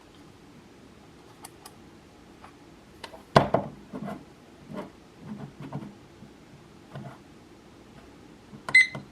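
Small knocks and taps of a plastic digital weather clock being handled, then a short electronic beep from the clock near the end.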